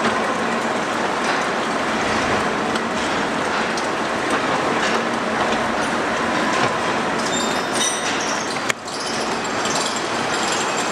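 Gear-cutting machine running as it cuts teeth on a large gear: a dense, steady metallic clatter, with one sharp click about nine seconds in.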